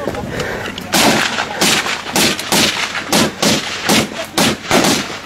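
Gunfire: a string of about ten single gunshots, coming irregularly at about two a second, starting about a second in.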